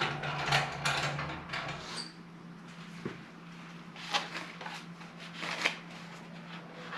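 Clicks and knocks of hand tools and the oil drain plug being handled as the drain plug, fitted with a new crush washer, is put back into the oil pan. The clicks come thickest in the first two seconds, then singly twice more, over a steady low hum.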